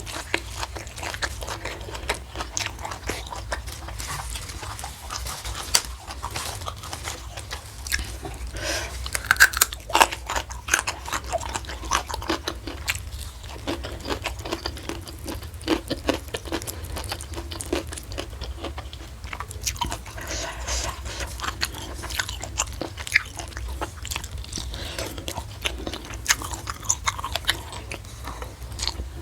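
Close-miked chewing and biting, with irregular crisp crunches and wet mouth sounds, as food is eaten for ASMR.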